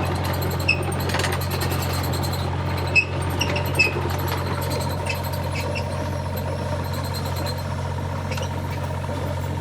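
Excavator engine running steadily while the machine travels, with a few short squeaks about three to four seconds in.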